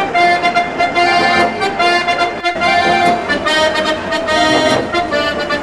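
Accordion playing a tune of held and changing notes, with a brief break about two and a half seconds in.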